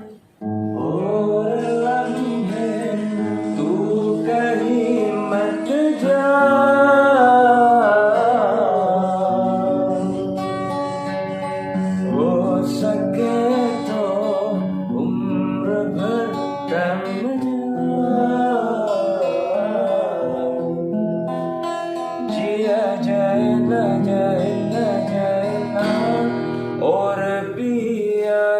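A sholawat devotional song sung to strummed acoustic guitar, the voice gliding through long ornamented notes. The music drops out for a moment right at the start.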